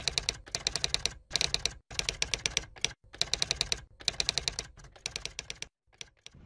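Typing sound effect for on-screen text typing itself out: rapid key clicks in short runs, with brief pauses between the runs.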